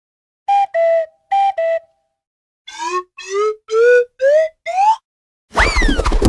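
A run of cartoon whistle sound effects: two pairs of short two-note toots, high then lower, then five short rising whistles climbing step by step. Near the end comes a sudden loud hit with a quick falling whistle.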